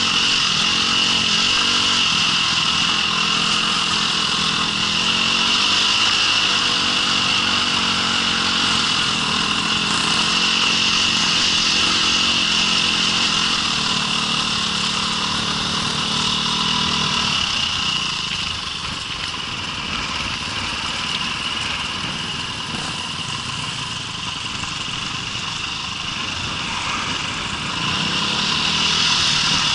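Off-road vehicle engine running steadily while under way. It drops in level about 18 seconds in and picks up again near the end.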